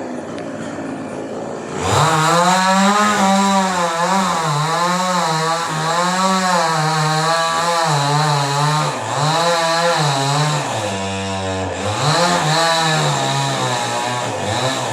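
Two-stroke chainsaw revving up to full throttle about two seconds in and cutting through a tree, its engine pitch rising and falling as the chain bites, with a brief drop in revs near eleven seconds.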